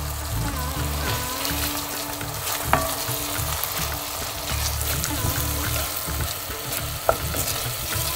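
Diced tomatoes and onion sizzling in oil in an enamelled pot while a wooden spoon stirs them, cooking down into a curry base. The spoon knocks sharply against the pot twice, about a third of the way in and near the end.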